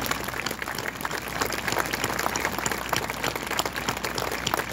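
Large crowd applauding: many hands clapping at once, steady throughout.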